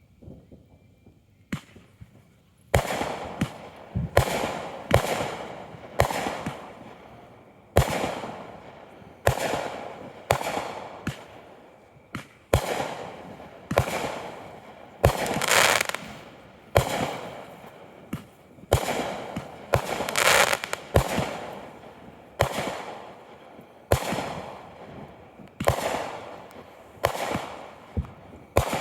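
Aerial fireworks bursting in quick succession, a loud bang about every second, each trailing off in a fading rumble and crackle. The bursts begin a couple of seconds in, after a faint pop or two.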